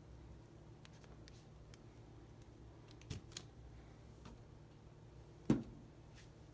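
Light handling noises over a faint low hum: a few small clicks, a soft knock about three seconds in, and a short, sharper thump about five and a half seconds in.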